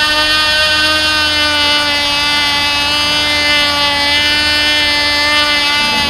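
Cox TD .049 two-stroke glow engine on a control-line model plane running flat out in flight: a high, steady buzz whose pitch wavers slightly as the plane circles, changing pitch just before the end.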